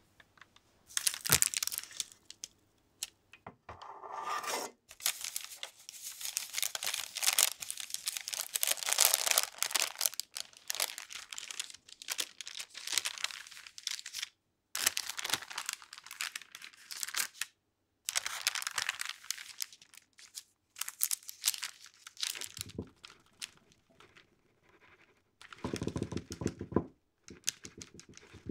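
Baking parchment being peeled and torn away from the sides of a baked castella cake, crinkling and rustling in a series of bursts with short breaks. Near the end a duller, lower rustle as the paper is handled.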